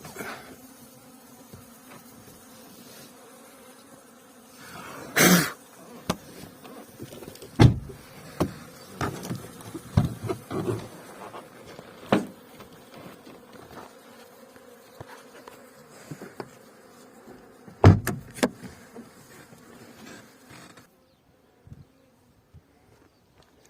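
Honeybees buzzing steadily around the hives, broken by several sharp knocks, the loudest about 5 and 18 seconds in. The buzzing cuts off suddenly near the end.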